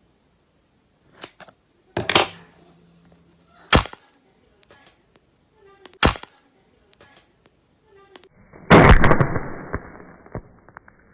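Slime being handled: a few sharp pops and clicks a second or two apart, then a louder crackling, squelching burst about three quarters of the way in that fades over a couple of seconds.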